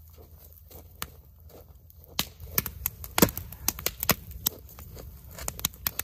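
Wood campfire crackling, with irregular sharp pops and snaps from split firewood that is not fully dry, and one heavier thump about three seconds in.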